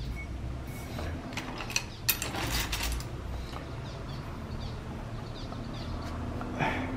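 Scattered light clicks and a short scraping noise about two seconds in, from hand work with tools on clay at a pottery bench.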